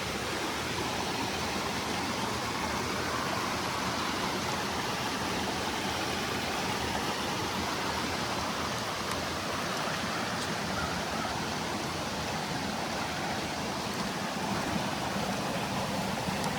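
Rain-swollen spring-fed creek, far above its usual trickle after about 11 inches of rain, rushing with a steady, even wash of running water.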